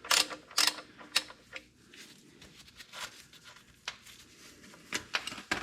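Socket wrench working a tractor's 17 mm oil drain plug loose: a quick run of metal clicks and rasps, then a few scattered single clicks.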